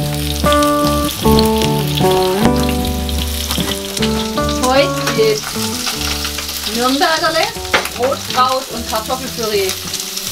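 Sausages sizzling and frying in a pan on a gas stove while being turned with a spatula. Music with held notes plays under it for the first few seconds.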